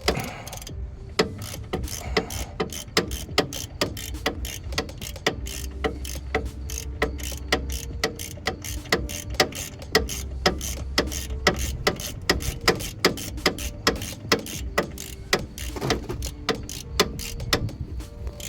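Hand ratchet wrench clicking steadily, a few clicks a second, as it is swung back and forth to back out the top bolt of a front brake caliper.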